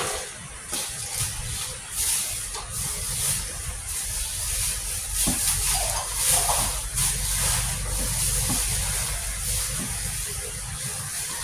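Plastic bag rustling and crinkling in irregular bursts as pork tocino is mixed in it by hand, over a steady hiss.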